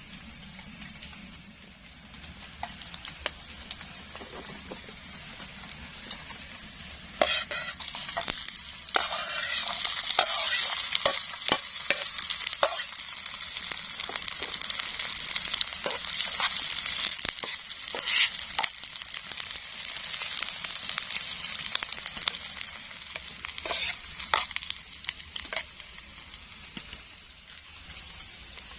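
Food frying in a pan, sizzling loudly from about seven seconds in, with sharp clicks and scrapes of a utensil stirring it. The sizzle eases off near the end.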